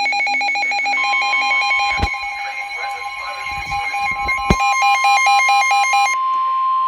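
Weather radio alert tones. A steady single-pitch warning alarm tone starts about a second in and holds, marking a new warning about to be read. Over it, a rapid pulsing electronic alarm beeps and stops about six seconds in, with two sharp knocks at about two and four and a half seconds.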